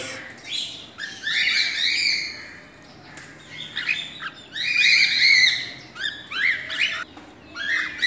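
Cockatiels chirping and squawking in bursts of short calls that rise and fall in pitch. There is a brief lull about three seconds in, and the calls are busiest and loudest around the middle.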